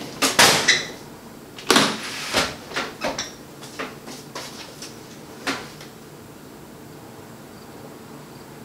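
Knocks and clatters of things being handled on a kitchen counter, about eight sharp ones in the first five and a half seconds. After that only a faint steady room hum.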